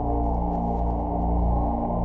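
Dark ambient music: low sustained droning tones that swell and fade, with no beat.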